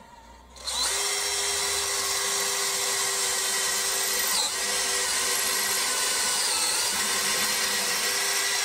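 DeWalt 18V XR brushless cordless drill running steadily under load, drilling a tapping-size hole for an M5 thread into the milling machine's carriage. It starts about a second in, with a brief dip about halfway through.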